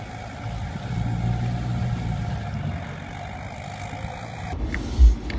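4x4 engine running under load while towing a stuck vehicle out of mud on a strap, rising about a second in and then easing. Near the end it changes to a different sound with heavy low thumps.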